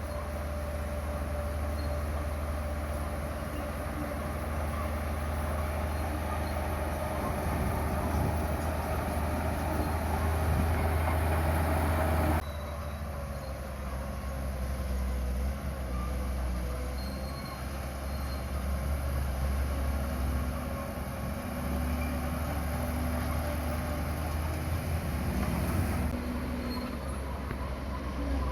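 Crawler bulldozer's diesel engine running steadily under load, a deep drone with a thin steady whine over it. The sound changes abruptly about twelve seconds in and again near the end.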